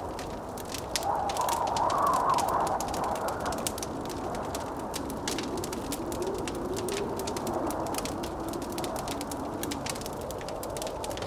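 Fireplace crackling with a steady stream of small pops and snaps, over a howling blizzard wind whose pitch wavers. The howl swells and rises about two seconds in, then sinks lower from about six to nine seconds.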